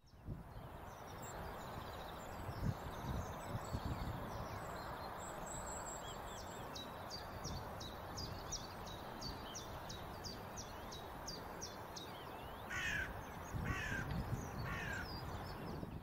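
Wild birds calling over a steady rushing background with some low bumps. A quick run of thin, high repeated notes comes midway, then three loud, harsh, caw-like calls about a second apart near the end.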